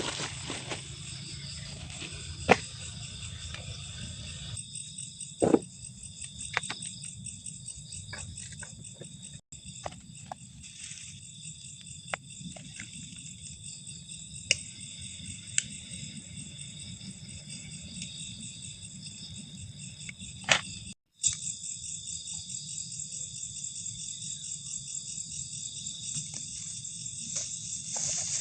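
A night chorus of crickets and other insects trilling steadily, with a few sharp knocks from handling things.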